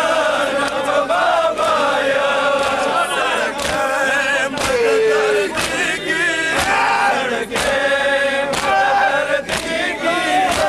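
Crowd of men chanting a Pashto matam lament in unison, with repeated hand strikes of chest-beating (matam) marking the rhythm.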